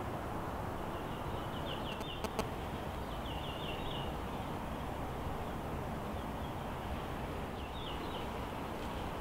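Steady outdoor background noise with a small bird chirping short trills a few times, and two sharp clicks a little after two seconds in.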